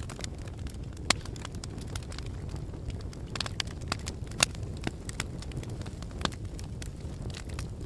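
Wood fire crackling, with sharp pops at irregular intervals over a steady low rumble of blowing wind.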